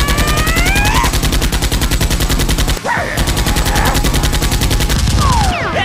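Two long bursts of rapid automatic gunfire with a short break near the middle: a dubbed machine-gun sound effect standing in for Nerf blasters in a firefight. A voice cries out at the start and again at the break.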